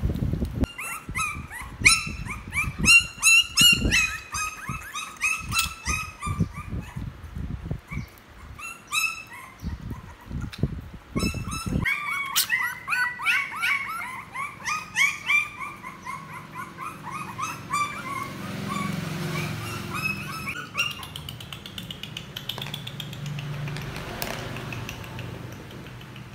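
Puppies whimpering and yipping in many short, high-pitched squeals, with low thuds and knocks through the first half.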